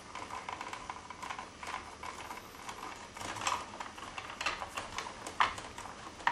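Plastic wire nut being spun by hand onto four twisted 14-gauge copper neutral wires: irregular small clicks and scrapes, with a sharper click about three and a half seconds in and another about five and a half seconds in.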